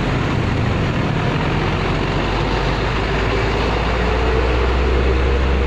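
Heavy truck's diesel engine running close by amid road traffic noise, a steady low rumble that grows a little louder about four seconds in as a bulk tanker truck draws alongside.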